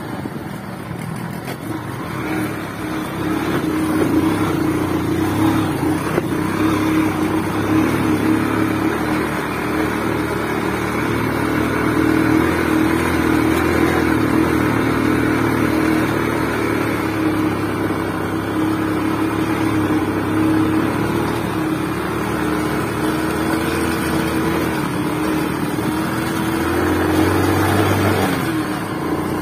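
Small motorcycle engine running steadily while riding along a dirt track, its pitch wavering slightly with the throttle.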